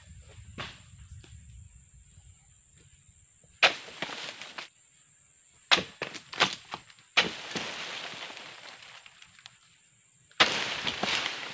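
A Dodos 777 oil-palm pruning chisel on a long pole striking and chopping into the bases of palm fronds: a sharp strike about three and a half seconds in, a quick run of strikes around the middle, and a loud one near the end, each followed by rustling of the cut fronds.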